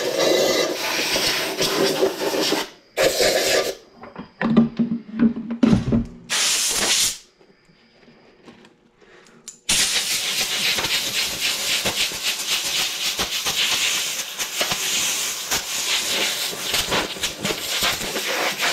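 Compressed air from an air chuck blowing dirt out of a car's engine air filter. It comes first as several short blasts, then, after a brief pause, as one long continuous hissing blast.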